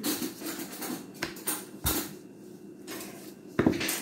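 Wooden rolling pin rolling dough out on a stone countertop, knocking sharply against it a handful of times.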